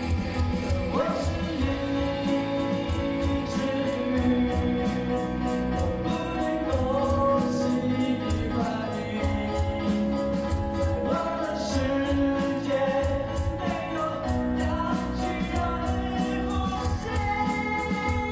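Live pop-rock band playing, with a sung melody over a steady beat of evenly spaced cymbal ticks.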